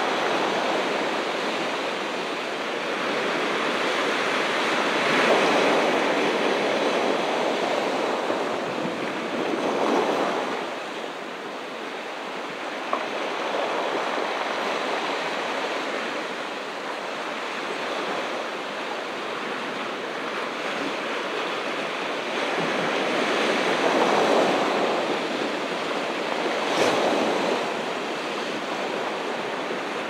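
Ocean surf washing onto a beach: a continuous rush of waves that swells louder every several seconds as a wave breaks.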